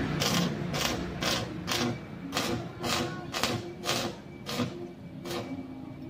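Stick arc welding on a steel grill frame, the arc struck and broken in short spurts about twice a second in a stitch-welding rhythm, getting weaker toward the end.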